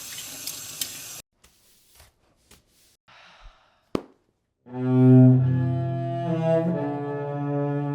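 A short burst of hiss and a few faint clicks, a sharp click about four seconds in, then a low held musical note with a bowed-string tone starts past the halfway mark and steps slightly in pitch.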